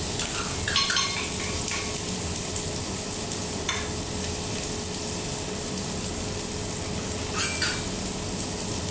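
Chopped scallions and garlic sizzling in oil in a stainless steel frying pan, with a few light clinks and scrapes of a spatula and spoon against the pan.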